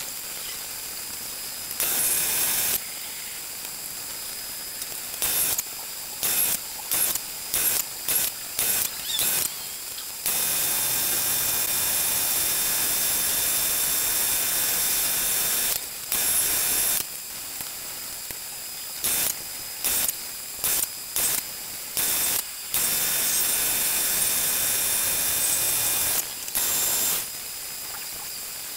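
RK-1860ZX geared-head metal lathe running, with a steady high whine and hiss that starts and stops abruptly many times: short bursts, a few longer stretches of several seconds, and quieter gaps between them.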